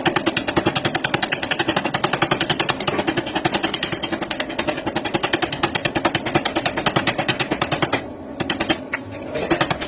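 Stick welding (SMAW) arc crackling steadily as a vertical-up bead is run, a fast dense sputter of pops. The crackle drops out briefly about eight seconds in, then starts again.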